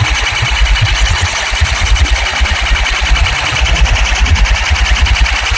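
Large DJ sound system playing loud, fast, evenly repeated bass pulses with a buzzing top end, heard close up during a sound test.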